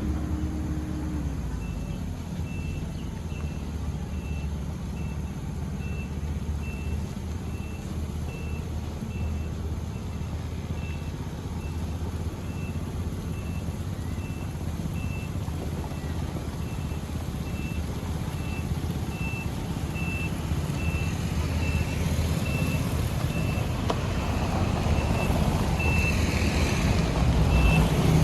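Heavy construction machine's diesel engine running with its reversing alarm beeping regularly. The machine grows louder in the last several seconds as it comes closer.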